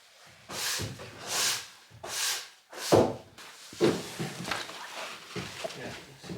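Hand saw cutting through wood in three long strokes, followed by a run of sharp wooden knocks and clatter.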